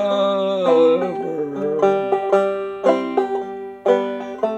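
Clawhammer banjo playing an old-time folk tune, with sharp plucked notes. A sung note is held over it for about the first second, then the banjo plays alone.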